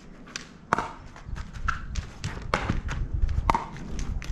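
Pickleball paddles striking the hollow plastic ball during a rally: a quick series of sharp pops, about seven over four seconds, at uneven spacing.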